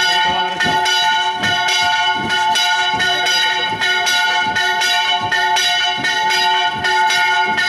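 Church bells ringing a fast, continuous peal: strokes come two or three times a second, over a sustained ringing hum.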